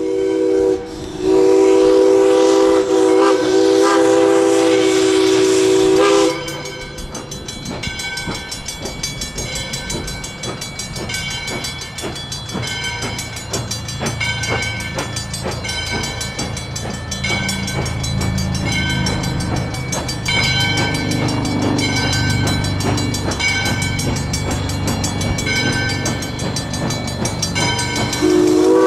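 Steam whistle of a 1920 ALCO-built 2-8-2 Mikado steam locomotive blowing a long chord blast for about six seconds, with a short break about a second in. Then the locomotive pulls away: a ringing bell struck about once a second over a low rumble that grows louder. The whistle sounds again near the end.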